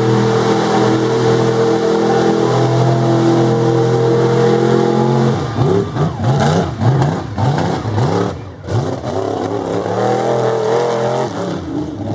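Lifted mud truck's engine held at steady high revs as it churns through the mud pit. About halfway through it switches to quick, uneven revs up and down as the truck climbs out of the pit.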